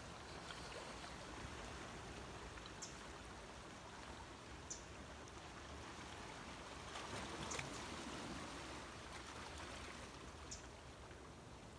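Faint, steady outdoor background rush, like distant running water, with a few small soft clicks while a mouthful of cooked coral mushroom is chewed quietly.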